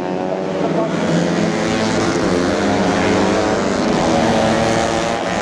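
Several tuned 130cc four-stroke underbone racing motorcycles running at high revs, their engine notes overlapping.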